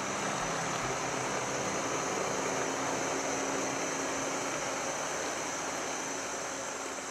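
Wilmar Eagle 8400 self-propelled sprayer's diesel engine running steadily as the machine drives slowly past at close range, getting slightly quieter near the end.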